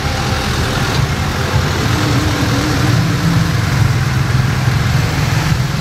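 An engine idling steadily, a constant low hum under a broad hiss.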